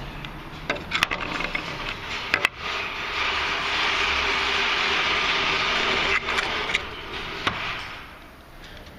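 Handling noise: a few sharp clicks and knocks, then a steady rushing hiss for about three and a half seconds, then a few more clicks before it fades.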